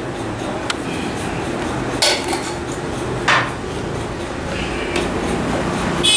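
A few sharp clinks and knocks of hard objects being handled, over a steady low background hum.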